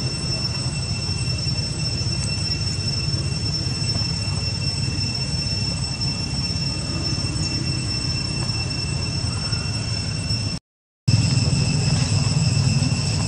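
Steady, high-pitched insect whine over a constant low rumble, with a brief dropout about eleven seconds in.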